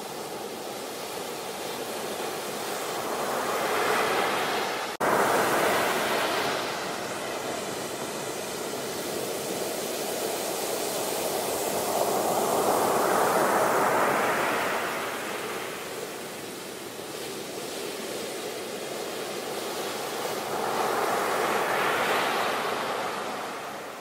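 Ocean surf breaking close to the shore: a steady wash of water noise that swells three times as waves break and eases back between them. A momentary gap in the sound about five seconds in.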